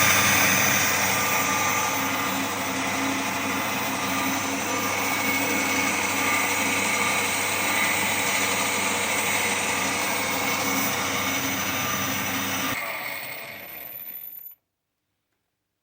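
Small metal lathe running steadily. About thirteen seconds in its motor hum stops, the remaining noise dies away over a second or so, and the sound ends abruptly in silence.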